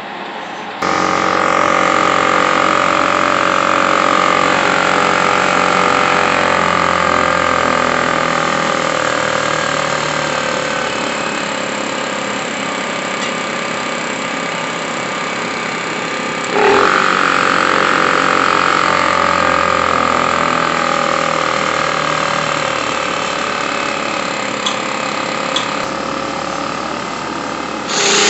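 Honda EU1000 inverter generator's small single-cylinder four-stroke engine running steadily on its freshly cleaned carburetor. The sound comes in abruptly about a second in, with a brief jolt about two-thirds of the way through, and its pitch eases slightly lower over time.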